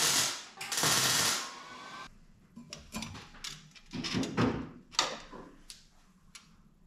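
Arc welding crackling for about a second and a half, with one brief break. Then scattered clicks and knocks of parts and a tape measure being handled, with one sharp click about five seconds in.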